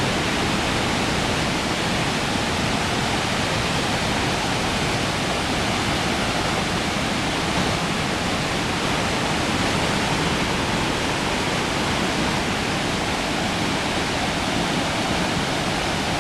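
Waterfall and foaming river water rushing, a steady, loud, even roar of water.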